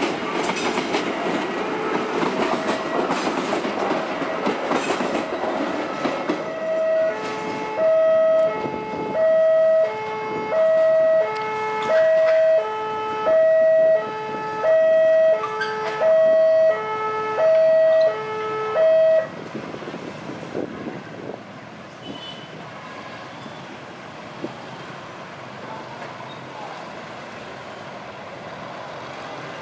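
Passenger train passing, its wheels clattering over the rails. Then a level-crossing warning alarm sounds a repeating two-note electronic chime, a higher note followed by a lower one about every second and a quarter, around ten times, and stops about two-thirds of the way through.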